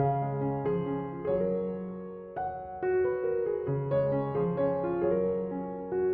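Soft piano music, slow notes and chords with sustained low tones.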